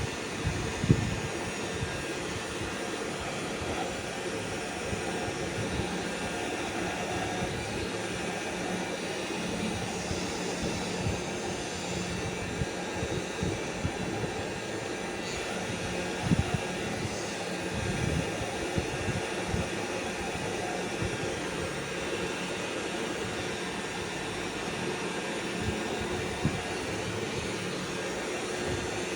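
Steady mechanical whir of a small spinning rotor or motor, running at an even speed, with a few light knocks.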